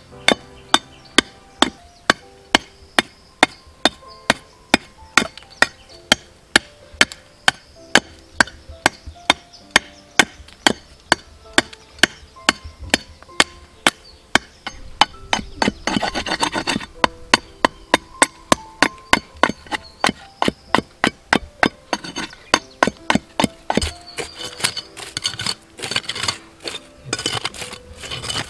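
A knife chopping and shaving a wooden stick, with sharp strokes about twice a second. Halfway through there is a rustling scrape, and near the end the strokes come faster and more scraping as the blade works into the soil.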